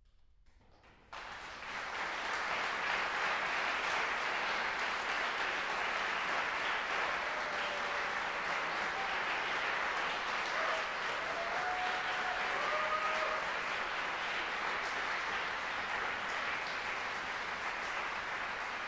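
Audience applauding, breaking out suddenly about a second in and then holding steady.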